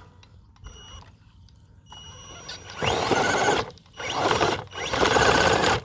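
Electric RC rock crawler's motor and geared drivetrain whirring under load in three bursts of throttle, each about a second long, starting about three seconds in, as it works for traction on the trail.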